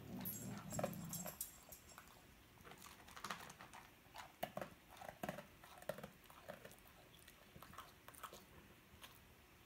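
A dog crunching dry kibble, with short irregular crunches and pauses between them. A low rumble sounds through about the first second.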